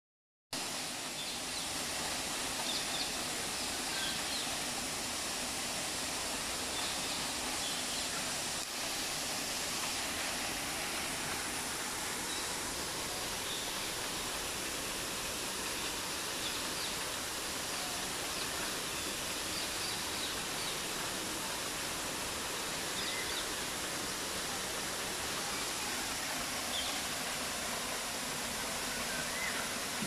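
Tall waterfall pouring down a rock face onto rocks: a steady, even rush of falling water.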